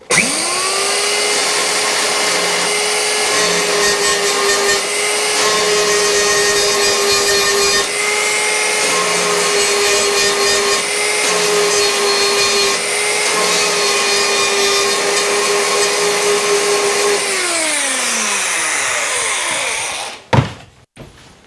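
Black & Decker power file (a narrow belt sander) running steadily while sanding paint off the metal case around a terminal, to get bare metal for a good connection. It spins up at once and runs for about seventeen seconds, then is switched off and winds down with falling pitch, followed by a click.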